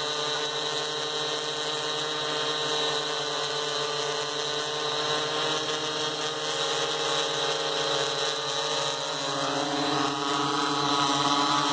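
Blade Chroma quadcopter hovering in place: the steady buzzing whine of its four electric motors and propellers, holding an even pitch.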